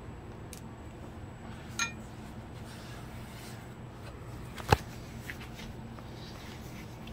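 Glass loaf pan clinking on the counter as a loaf of dough is set into it: a short ringing clink about two seconds in, then a louder sharp knock a few seconds later, over a steady low hum.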